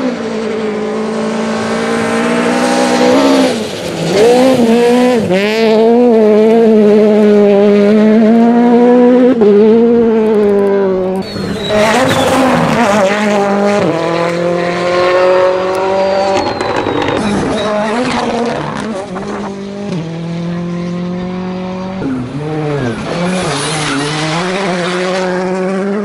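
Several rally cars passing one after another on a gravel stage, their engines revving hard, the pitch rising and falling with throttle and gear changes.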